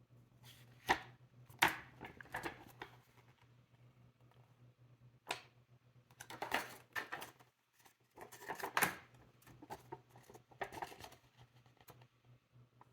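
Paper leaflets and a cardboard phone box being handled: scattered rustles and light clicks in short bursts, with a pause of near quiet about halfway through.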